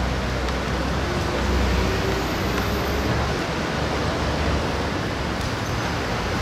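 Steady outdoor background noise: a low rumble under a constant hiss, in the manner of city traffic around an open-air pitch.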